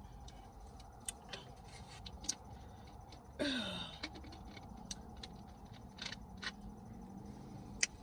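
Close-miked eating sounds: scattered wet mouth clicks and smacks from chewing tacos. About three and a half seconds in, a short burp that falls in pitch.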